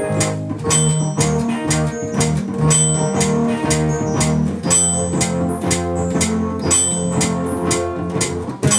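Band music with no singing: guitar notes over a steady drum beat.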